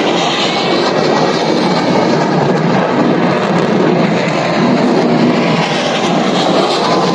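Jet aircraft engines running overhead, a loud, steady, rushing noise with no clear rise or fall.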